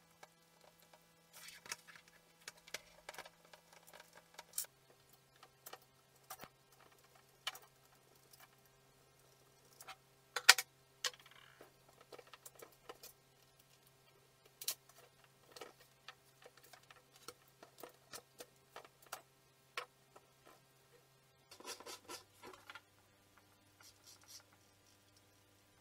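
Scattered clicks and knocks of a Bosch jigsaw's plastic housing being handled and pried apart on a tabletop, with one sharp knock about ten seconds in and a busier run of clatter a few seconds before the end.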